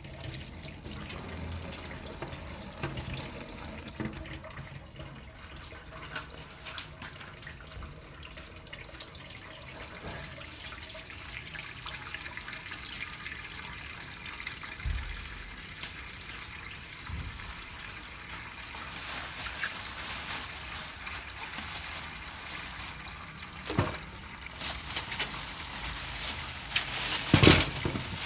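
Tap water running into a plugged stainless steel sink, filling it. Near the end a few knocks as vegetables are put into the sink.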